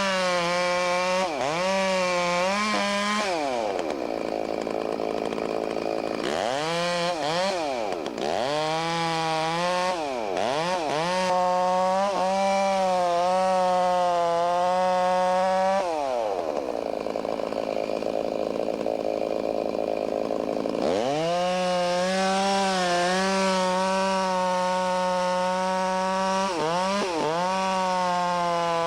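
Two-stroke chainsaw running at high revs through a felling cut in a standing tree. Its pitch drops and climbs back several times as the throttle eases and the bar loads up in the wood. There are two longer stretches of rough cutting noise.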